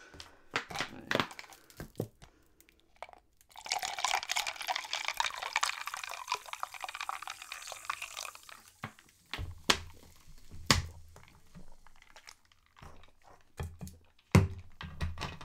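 Carbonated Coca-Cola poured from a 2-litre plastic bottle into a plastic mug, a pouring, fizzing hiss lasting about five seconds. A few clicks of the plastic bottle being handled come before it, and knocks and clicks of the bottle and mug being set down follow it.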